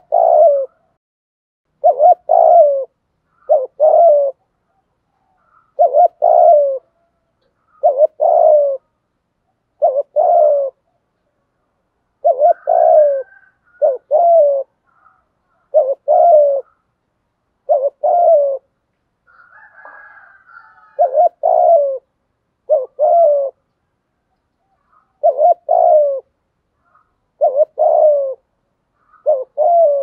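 Spotted dove (cu gáy) giving the 'thúc gù' call: short, low coo phrases repeated about every one to two seconds, some in quick pairs, with one longer pause a little past the middle. This is the rousing call that keepers use to stir up rival male doves.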